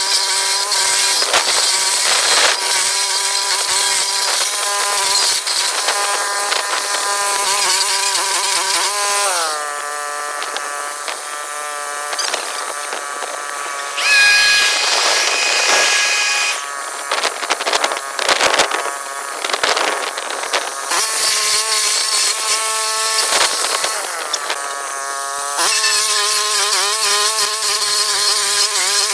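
Walk-behind stump grinder's small gasoline engine running at high speed while its cutter wheel grinds into a stump. Its speed drops about a third of the way in and stays lower for a long stretch of scraping and clicking, with a brief high whine in the middle, then rises back up to full speed near the end.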